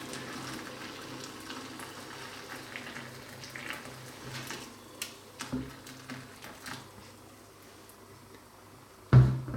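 Hot water bubbling with scattered small pops, slowly fading. A sudden thump near the end.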